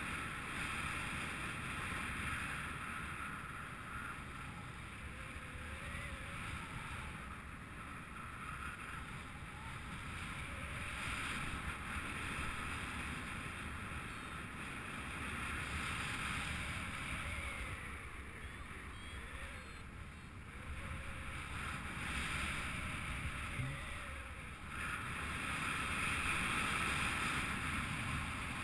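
Wind rushing over an action camera's microphone as a paraglider glides in flight, a steady low rumble and rush that swells and ebbs every few seconds.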